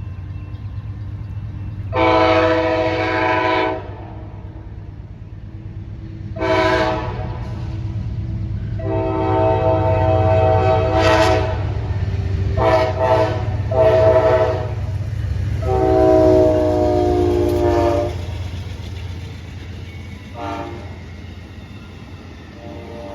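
Amtrak diesel locomotive's multi-chime horn sounding a salute of six blasts, long and short mixed, with a long blast about two seconds in, another near the middle and a last one after about sixteen seconds. A steady low rumble of the train's engine and cars runs beneath.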